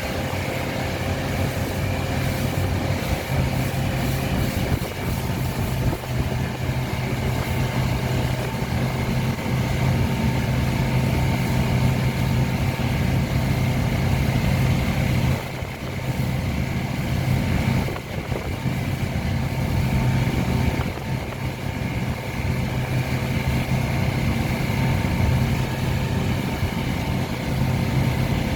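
Tow boat's engine running steadily at speed while pulling a slalom water-skier, dipping briefly twice, about 15 and 18 seconds in.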